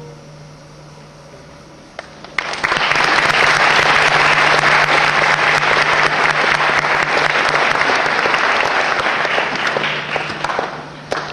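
Audience applauding a concert band at the end of a piece. The clapping starts about two seconds in, after a brief hush, stays steady and fades out near the end.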